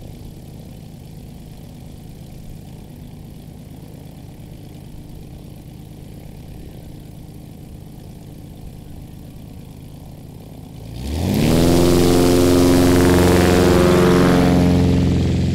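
Light piston aircraft engine idling with a low steady hum, then, about eleven seconds in, going suddenly to full throttle, loud with rising pitch, as a high-wing bush plane on large tundra tyres begins a short takeoff roll close by; the sound starts to fade near the end.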